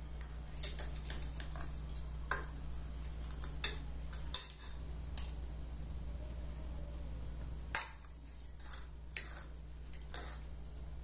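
Fork and knife clinking against a plate while cutting a soft, omelette-like egg dish: irregular sharp clicks every second or so.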